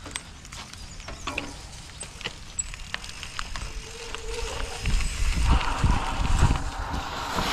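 Mountain bike rolling down a rough dirt trail, with scattered clicks and knocks from the bike jolting over the ground. About two-thirds of the way through it turns into a much louder, heavier rumble with hiss.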